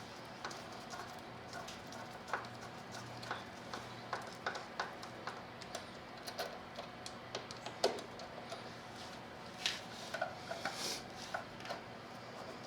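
Irregular light metallic clicks and taps of small bolts and parts being handled and started by hand, not yet tightened.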